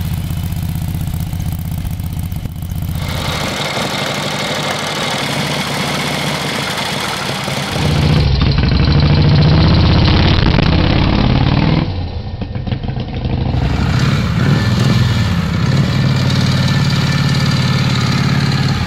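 Matchless Model X 1-litre V-twin motorcycle engines running, heard across several edited clips. The sound changes abruptly about 3, 8 and 12 seconds in and is loudest from about 8 to 12 seconds.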